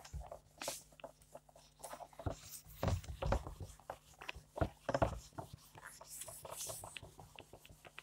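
A hand-held eraser wiping a whiteboard: irregular soft rubbing swishes mixed with light knocks and taps against the board.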